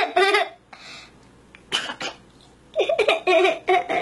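A young boy laughing in bursts: a run of laughs at the start, a short lull, then a quicker rhythmic string of laughs in the last second and a half.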